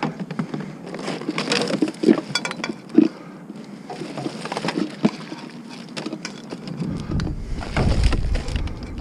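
Junk being rummaged through and handled in a dumpster: a run of knocks, clinks and rattles of hard objects. A low rumble comes in near the end.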